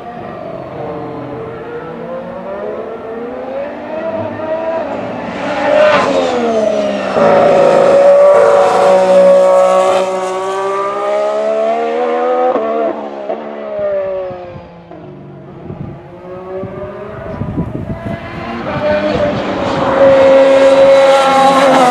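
2016 Formula 1 cars with 1.6-litre turbocharged V6 hybrid engines passing at speed on track, their engine pitch jumping up and down with gear changes. A car goes by loudly in the middle, its pitch dropping sharply as it brakes and downshifts, and another car comes up loudly near the end.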